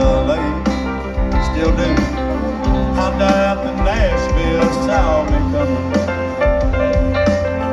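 Live country band playing an instrumental passage, heard from the crowd through the PA: steady drums and bass under lead notes that bend in pitch, with keyboards in the mix.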